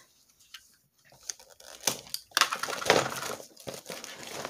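Plastic shrink-wrap being worked loose and torn off a cardboard box, crinkling and crackling in irregular bursts that start about two seconds in after a near-silent pause.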